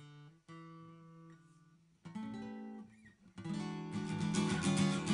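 Acoustic guitar played solo: a few single notes ring out and fade, another sounds about two seconds in, then chord strumming starts about three and a half seconds in and gets louder.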